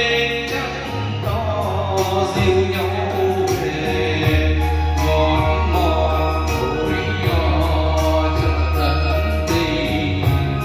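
A man singing a Vietnamese song into a karaoke microphone over an instrumental backing track with a steady bass line.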